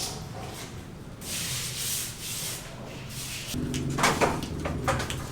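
Scraping or rubbing strokes, as of building work, followed by a low hum and a few sharp knocks about four seconds in.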